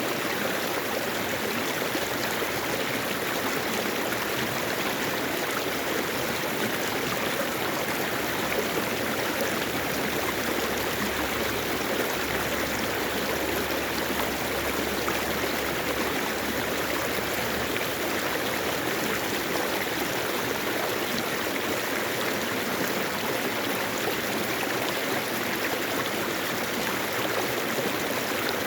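Mountain stream flowing over rocks: a steady rush and babble of running water.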